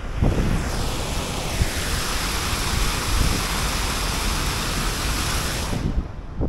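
Wind and riding noise on the camera microphone while cycling: a loud steady hiss over a low rumble that cuts off suddenly near the end.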